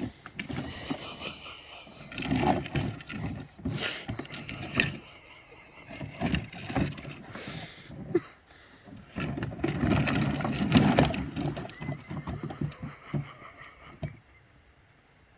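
A dog making short, low vocal sounds in irregular bursts while it works at a toy car, with knocks and clicks mixed in; a longer, louder run of vocalizing comes about ten seconds in, and it dies down near the end.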